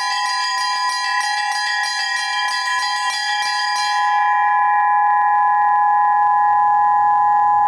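Russian-style bell ringing on a set of three bells: a rapid run of strokes, the first and second bells sounding together on the strong beat and the third on the weak beat, a rarely used pattern. About four seconds in the strokes stop, and a few steady ringing tones hold on evenly without dying away.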